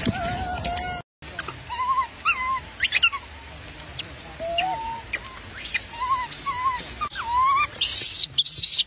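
Baby macaques whimpering: one drawn-out cry, then after a short break a string of short high cries, each rising and falling in pitch. Rustling scuffles come in near the end.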